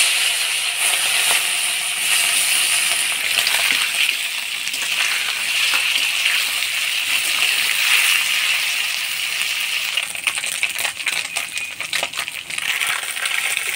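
Small bajali fish sizzling loudly as they fry in hot oil. From about ten seconds in, sharp clinks of a utensil against the pan sound over the sizzle.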